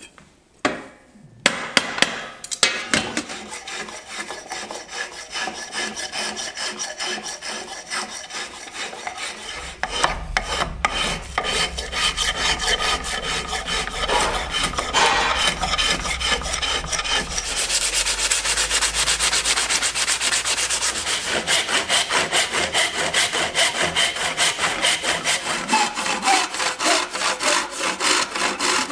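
Hand tools working a wooden tool handle in rapid repeated strokes: a spokeshave shaving curls off the wood, turning into a faster, hissier scraping along the wood about two-thirds of the way through. A few sharp knocks come just after the start.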